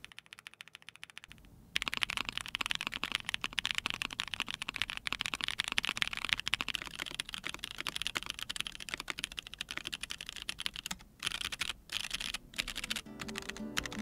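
Typing sound test of KNC Keys Black Jacket light tactile switches (JWK-made, long-pole POM stem, triple-stage spring) in a Fuji65 keyboard with a POM plate, no foam and GMK Shanshui keycaps: fast, steady clacky keystrokes whose top-out is almost as loud as the bottom-out. The typing starts about two seconds in, and music comes in near the end.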